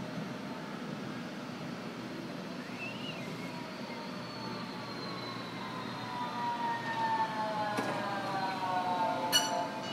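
Electric low-floor tram approaching and running past over a steady rumble, its motor whine growing louder and slowly falling in pitch. One sharp metallic clang with a brief ring near the end.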